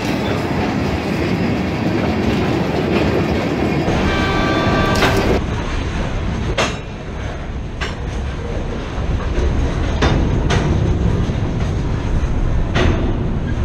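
Freight train of tank cars and covered hoppers rolling past close by, with a steady loud rumble of wheels on rail. A brief high squeal comes from the wheels about four seconds in. Later there are a few sharp clacks, a second or two apart, as the wheels cross rail joints.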